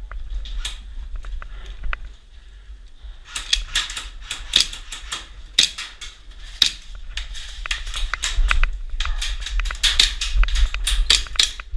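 Airsoft gunfire: a dense, irregular patter of sharp cracks and clicks, starting about three seconds in, over a steady low rumble.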